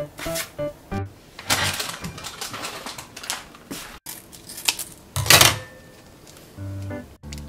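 Close-up food-prep sounds: a rustling scrape of food going into a bowl, then kitchen scissors snipping open a plastic sauce sachet, with a sharp crinkle about five seconds in as the loudest moment.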